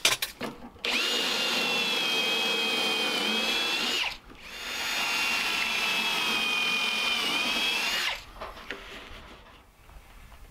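Ryobi 18V cordless drill boring pocket holes into plywood through a pocket-hole jig. It makes two runs of about three seconds each, a steady whine that sags slightly in pitch near the end of each run as the stepped bit bites deeper.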